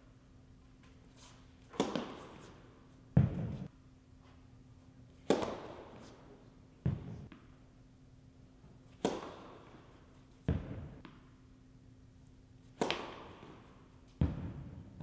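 Tennis serves hit one after another on an indoor court. Four sharp racket-on-ball strikes ring out in the hall's echo, each followed about a second and a half later by a duller thud. A faint steady hum runs underneath.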